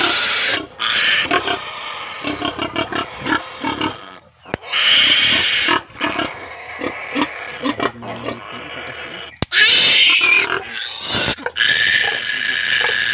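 Day-old piglet squealing loudly and repeatedly, with short breaks between long squeals, as it is held and its needle teeth are clipped with a nail cutter.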